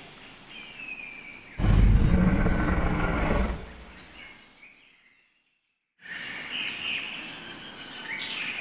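Recorded dinosaur sound effects: a loud, low roar starts about a second and a half in and lasts about two seconds before fading out. After a short stretch of dead silence, faint bird chirps come in near the end.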